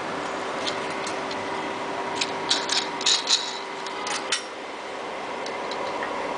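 Steady hum of a running automatic tape-wrapping machine, with a series of light, irregular clicks and taps that bunch together in the middle.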